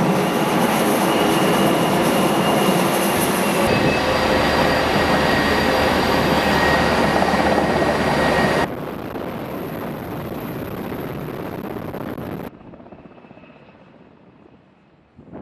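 Loud, steady jet-fighter engine noise on an aircraft carrier's flight deck, with a thin high whine over it. The sound jumps abruptly to a different level several times, and is much fainter for the last few seconds.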